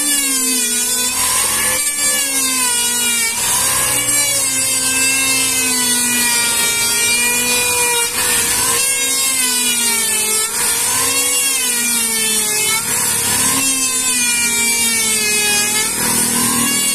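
Electric hand planer running and cutting along a wooden panel: a steady motor whine whose pitch sags and recovers as the blades take load on each pass, over a high hiss.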